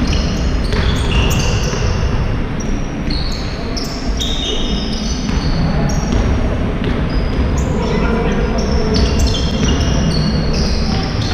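Basketball game on an indoor court: sneakers squeak on the floor again and again, the ball bounces, and players' voices call out in the hall.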